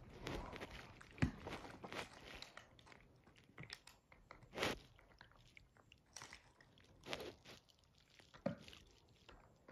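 A dog chewing on a toy: an irregular run of faint crunches and bites, the sharpest about a second in and about halfway through.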